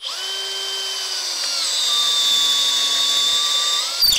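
Bosch 18 V cordless drill running on low speed, boring a 14 mm hole in hard walnut with an aggressive wood bit. A steady motor whine whose pitch drops slightly about halfway through, then stops just before the end.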